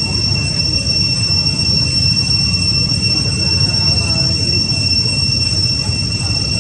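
Steady high-pitched whine held on one pitch without a break, over a dense low rumble.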